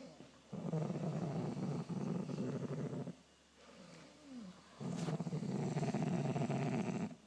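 A sleeping person snoring: two long snores, each about two and a half seconds, with a quiet breath between them.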